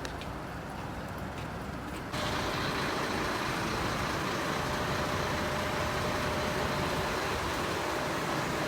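Large fire-service vehicles running at a fire scene: steady engine noise that jumps, about two seconds in, to a louder steady rushing noise with a faint hum running through it.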